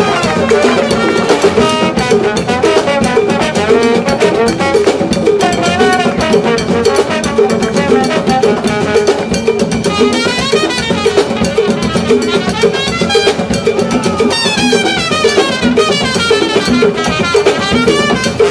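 Live Afro-Cuban dance music from a band: trumpet and trombone play runs over congas, drums and cymbals that keep a steady beat.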